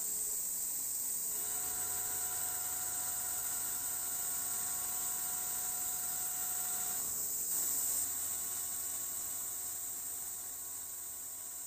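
Dijet QM MAX G2 high-feed face mill with seven double-sided inserts, milling SUS316L stainless steel on a vertical machining centre: a steady hiss with a buzzing hum and several held tones. The tones drop out briefly about a second in and again around seven seconds in, and the sound fades a little near the end.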